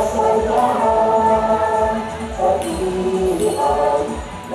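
Background music with several singing voices holding long notes that step from pitch to pitch.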